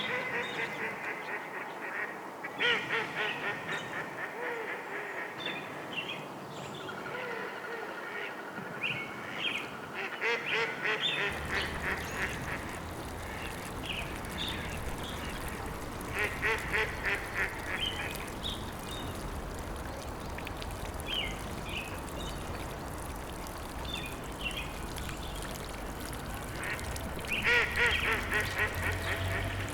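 Ducks quacking in repeated bursts over steady background noise; a low rumble sets in about eleven seconds in.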